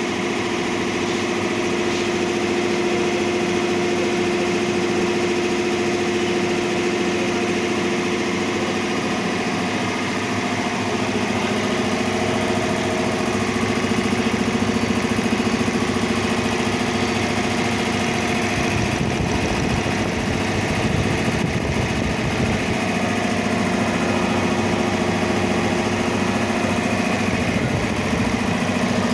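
7.5 HP high-pressure piston air compressor running steadily: an electric motor drives the multi-cylinder finned pump as it charges its 500-litre tank.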